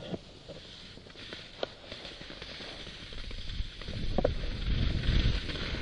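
Wind buffeting the microphone of a pole-mounted action camera, with skis sliding over snow, the rumble growing louder from about three seconds in. A few light knocks sound along the way.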